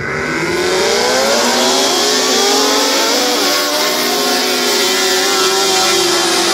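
A pack of lightning sprint cars with engines revving up together. The loudness jumps suddenly as several engine notes climb in pitch over about a second, then stay at high revs as the cars race around the dirt oval. This is typical of the cars pulling away from a rolling start.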